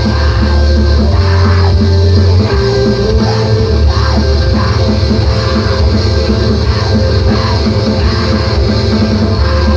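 Recorded emoviolence/screamo music: loud, dense distorted guitars with bass and drums.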